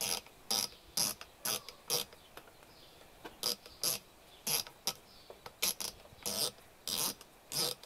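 Windage turret of a Meopta Optika 6 1-6x first-focal-plane riflescope being turned click by click: solid, distinct clicks at about two a second, with a pause of about a second near the middle.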